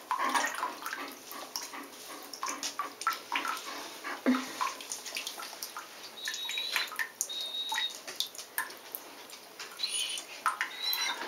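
German shepherd whining in short high-pitched whines, twice past the middle and again near the end, over small splashes and drips of shallow bathtub water.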